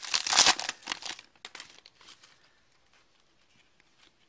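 Foil wrapper of a Pinnacle hockey card pack crinkling as it is torn open, loud for about the first second, then dying away. Afterwards there are only faint light ticks as the cards are handled.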